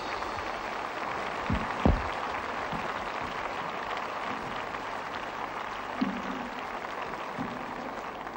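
Large audience applauding after a song, an even patter of clapping that slowly dies away, with two dull thumps about two seconds in.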